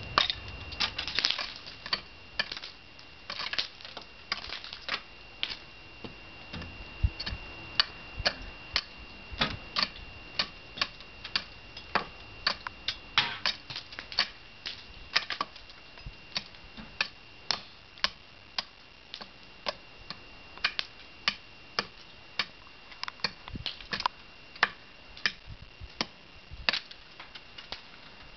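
Icicles being chipped and knocked at with a tool: a long run of sharp, irregular clicks and taps, about one or two a second, over a faint steady high whine.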